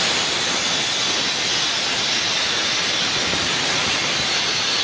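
Compressed air hissing steadily out of an isolating cock on a Vande Bharat trailer coach's auxiliary air compressor (baby compressor) panel, turned to its isolated position: in that position the cock vents the air tank's pressure to atmosphere.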